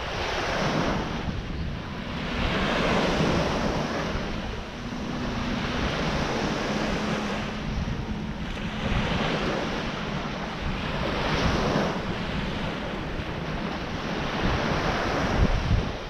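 Gentle ocean surf washing on a sandy beach, the hiss of the breaking water swelling and fading every few seconds, with wind buffeting the microphone and a faint low hum under it through the middle.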